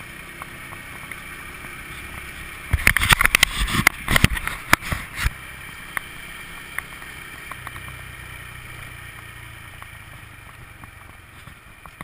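Honda scooter riding along a street, with steady engine, road and wind noise on the handlebar-mounted camera's microphone. About three seconds in comes a two-second burst of loud knocks and rattles.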